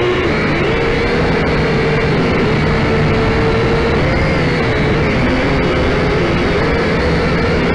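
Syma X5C quadcopter's brushed motors and propellers whining, picked up by its own onboard camera. The pitch wavers up and down as the throttle changes, over a steady rushing noise.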